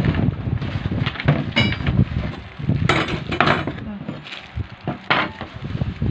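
Packing materials of a burner stove being handled in its cardboard box: plastic and bubble wrap crinkling, cardboard scraping and light knocks, in a quick irregular run of clicks and rustles.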